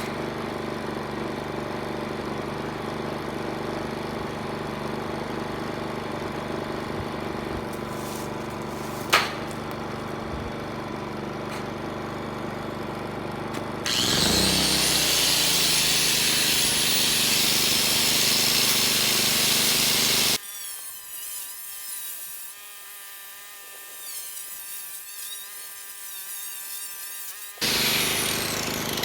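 Power saw cutting wood: a loud, even run of about six seconds midway that starts and stops abruptly. Before it there is a steady low machine hum with one sharp knock about nine seconds in.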